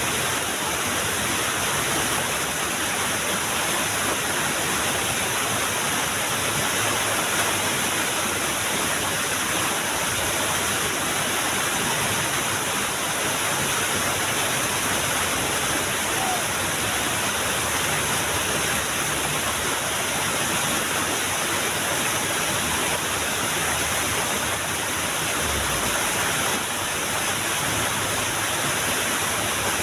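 Small waterfall rushing, a steady, even wash of falling water.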